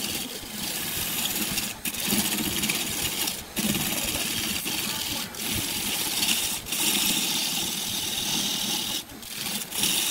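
Wood lathe turning a glued-up layered wood blank at about 890 rpm while a gouge cuts it: a steady shaving hiss of the cut, with short breaks every second or two as the tool lifts off.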